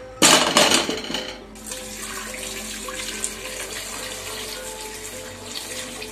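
Whole potatoes dropping off a plate into an empty steel pot, several loud knocks in the first second, followed by a steady stream of water pouring into the pot over them.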